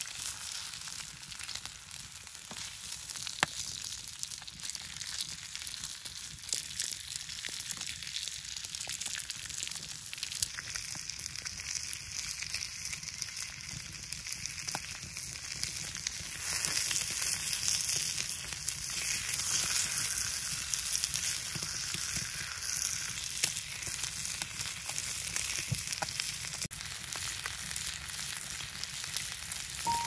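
Bone-in ribs sizzling on a griddle plate over a wood campfire, a steady frying hiss with scattered small pops. The sizzle grows louder about halfway through.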